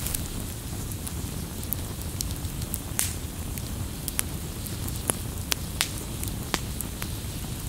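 Wood campfire burning with a steady low rumble, sharp pops and crackles breaking through at irregular moments, the loudest about three seconds in.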